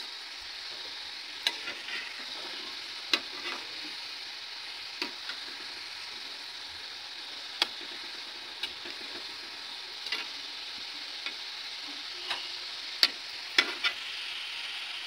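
Litti dough balls deep-frying in oil in a kadhai on medium heat: a steady sizzle. About a dozen sharp metal clinks come at irregular intervals, several close together near the end, as a perforated metal spoon knocks the pan while turning them.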